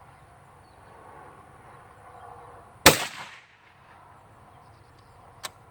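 A single shot from a Remington 700 BDL bolt-action rifle in .223, about three seconds in: one sharp crack with a short fading echo. A light click follows near the end.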